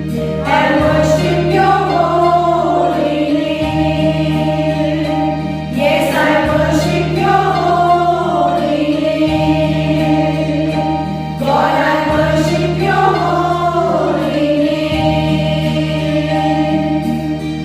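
Choir singing a song over a steady held-note accompaniment, in three long phrases, each starting about six seconds after the last.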